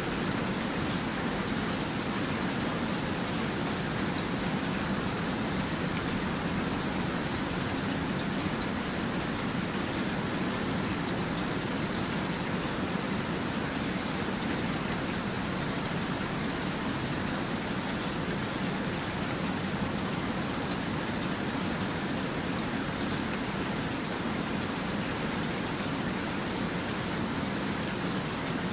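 Steady rain falling: an even, dense hiss with fine drop ticks scattered through it and one sharper tick near the end.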